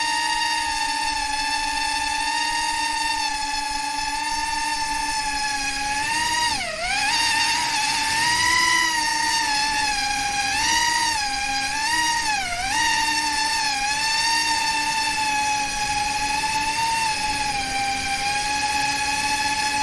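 FPV quadcopter's electric motors whining steadily, the pitch swooping down sharply about seven seconds in and wavering up and down a few times around ten to thirteen seconds as the throttle changes, then holding steady again.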